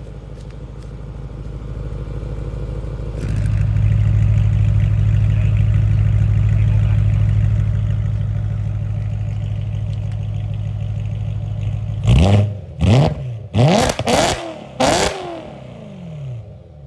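BMW E92 M3's 4.0-litre V8 idling through an Armytrix valved exhaust with the valves open. It steps up in loudness about three seconds in. Near the end come five quick, sharp throttle blips, each revving up and falling straight back, before it settles to a quieter idle.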